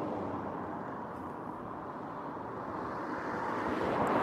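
Distant road traffic: a steady rushing noise that grows louder near the end.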